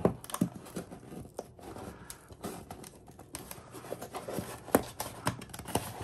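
Cardboard shipping box being pried and torn open by hand: paper and cardboard tearing and crinkling, with scattered taps and knocks as the box is handled, one sharper knock late on.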